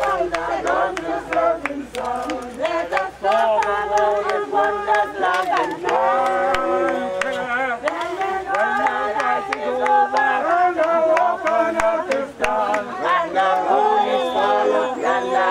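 A group of people singing together, with many voices holding long notes and moving between them.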